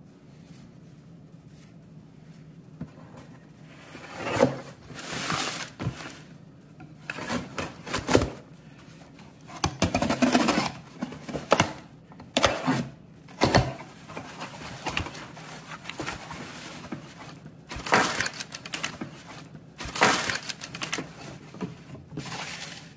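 A cardboard shipping box being opened by hand: a knife slicing through packing tape, the flaps pulled open and the cardboard rustling and scraping, in irregular bursts with a few sharp knocks.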